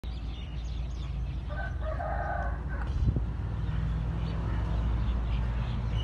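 A rooster crowing once, starting about a second and a half in and lasting just over a second, over a steady low rumble, with scattered high chirps and a brief knock about three seconds in.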